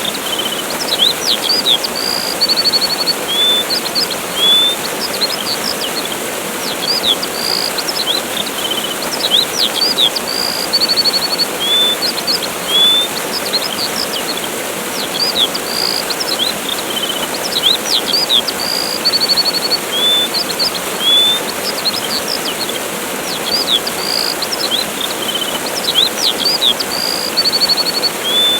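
Steady rush of a waterfall with small birds chirping over it: quick high chirps, short whistled notes and a buzzy trill, repeating in the same pattern about every nine seconds.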